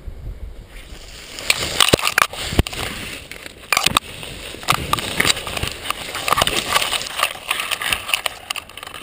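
Wind rush on the microphone gives way about a second in to dry brush and twigs crackling and snapping, in a dense string of sharp clicks with a few louder snaps, as the paraglider comes down into the bushes.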